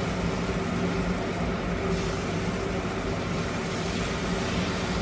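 Small batter pancakes frying in oil in a pan, a steady sizzle, over a constant low machine hum. Fresh batter is spooned into the hot pan.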